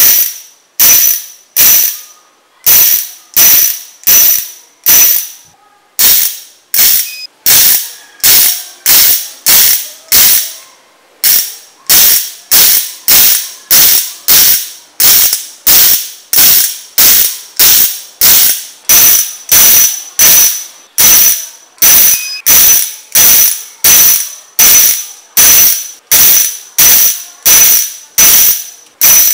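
Magnetic 24-tooth ratchet freehub of a mountain-bike rear hub spun by hand over and over. Each flick gives a loud burst of rapid ratchet clicking that starts sharply and fades as the hub slows, about three flicks every two seconds, with a few brief pauses.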